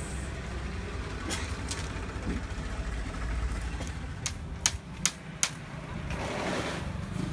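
Outdoor background noise: a steady low rumble, with three sharp clicks in quick succession about five seconds in and a brief rustle near the end.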